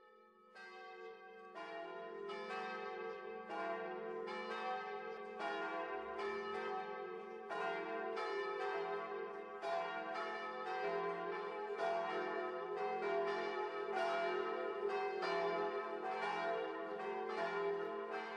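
Church bells ringing a peal: a run of separate strokes, about two a second, each bell ringing on under the next. The peal starts about half a second in.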